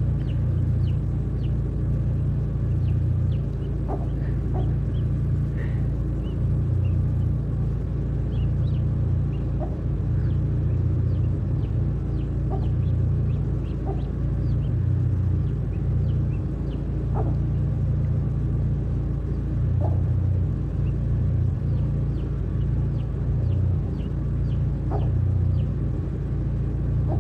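Domestic fowl giving many short, high peeps and a few lower calls, over a loud, steady low rumble.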